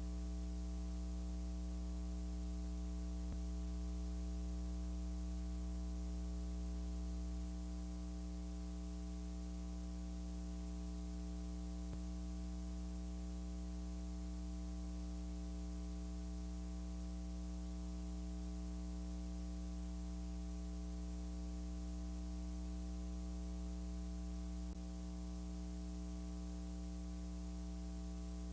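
Steady electrical mains hum with a buzzy stack of overtones, over a layer of hiss; no voices or room sounds come through. The level drops slightly about seven seconds in and again near the end.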